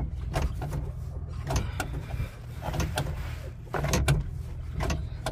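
Kia Towner mini truck's brake pedal being pumped by hand, giving a series of irregular mechanical clunks and knocks as it pushes the old brake fluid out of the master cylinder.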